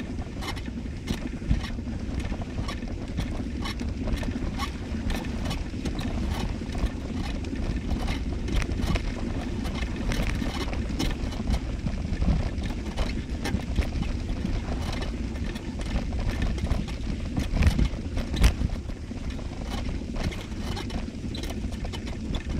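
Footsteps walking steadily, a short crunch about two or three times a second, over a steady low rumble.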